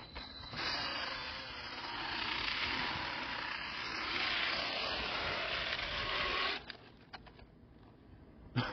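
Electric propellers of a homemade multirotor flying RC car spinning at flight power with a steady whirring rush. About two-thirds of the way through the sound cuts off suddenly as the motors stop, leaving a few light knocks and one louder knock near the end.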